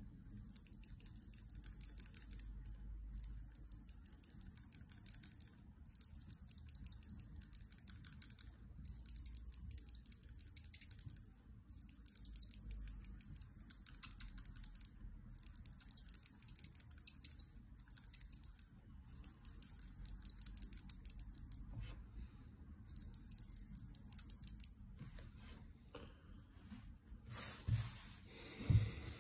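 Copic alcohol marker nib scratching rapidly over paper in quick short hatching strokes, in runs of a second or two with brief pauses. A couple of soft thumps near the end as the sheet is moved.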